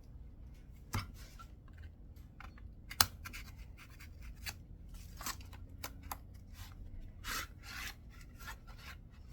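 Metal hand tool being opened and handled on a coilover: scattered clicks and scraping, with a sharp metallic click about three seconds in.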